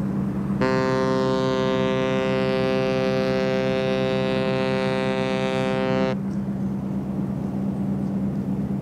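Ship's horn sounding one long blast of about five and a half seconds, a full chord-like tone that stops sharply, over a deeper steady horn tone that carries on beneath it.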